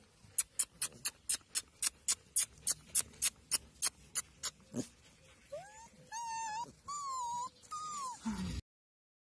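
A run of even ticks, about four a second, then four short high-pitched whines from golden retriever puppies, rising and bending in pitch, as the puppies wake.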